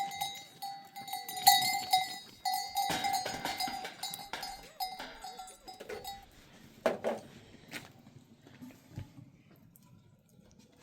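Metal bells jangling and ringing with many clinks, stopping about six seconds in. A couple of knocks follow.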